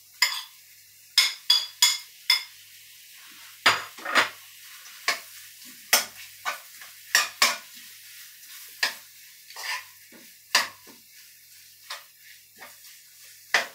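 Metal spoon clinking and scraping against a metal frying pan at an irregular pace as raw chicken pieces are stirred into curry paste, with a faint sizzle of frying beneath.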